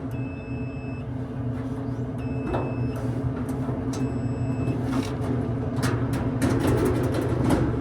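Small clicks and knocks of tools and metal parts being handled during a dryer teardown, over a steady electrical hum, with three evenly spaced high beeps in the first five seconds.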